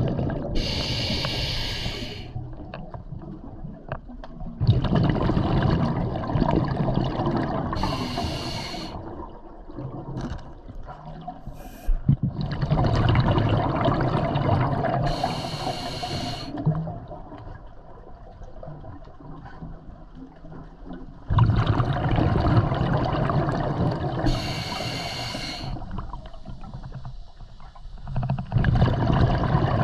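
A scuba diver breathing through a regulator underwater. Four breaths about seven to eight seconds apart, each a short hiss of the demand valve on the inhale and a longer, louder gurgling rush of exhaled bubbles.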